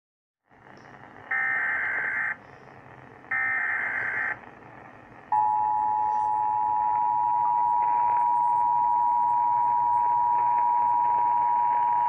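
Emergency Alert System tones from an Eton American Red Cross radio's speaker: two one-second bursts of buzzing SAME data header, then the steady two-tone attention signal starting about five seconds in. The tones announce a severe thunderstorm warning broadcast.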